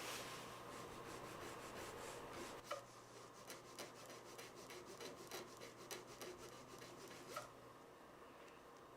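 Faint rubbing and scraping on a Victorinox plastic toothpick as its edges are rounded off, with a run of short quick strokes in the middle that stops a little past seven seconds in.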